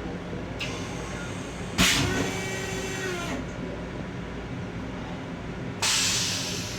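Toilet in an M7 railcar restroom flushing: a sudden loud rush with a pump tone that rises and falls for about a second and a half, then a second loud hissing rush near the end that fades away, over the steady rumble of the moving train.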